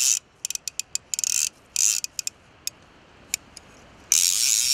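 Madfish centre-pin reel's ratchet clicker rattling as the spool turns while a carp is played: short bursts and scattered single clicks, then a longer run near the end. The ratchet is raucous and very, very loud on an otherwise smooth reel.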